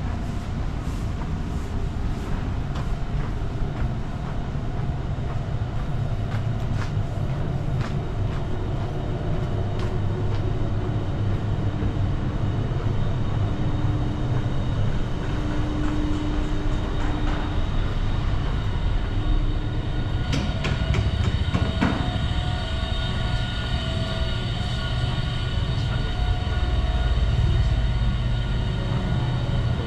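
A train running past with a steady low rumble and a humming tone. About two-thirds of the way through, high steady ringing tones join in.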